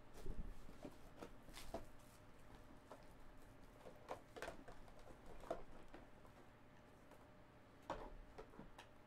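Cardboard hobby boxes being picked up, shuffled and set down on a tabletop: a scattered run of light knocks and taps with faint rustling between them.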